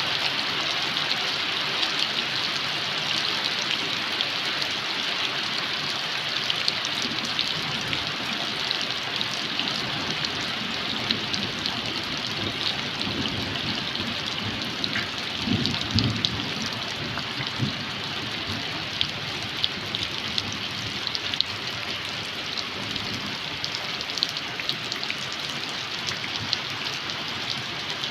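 Steady rain falling on forest leaves and ground: an even hiss dotted with the fine ticks of close drops. A brief low rumble swells and fades about halfway through.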